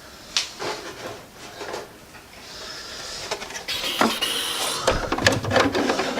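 Soft rubber RC car tyre being worked by hand over a plastic wheel rim: rubbing and scraping with a few clicks and knocks, busier near the end.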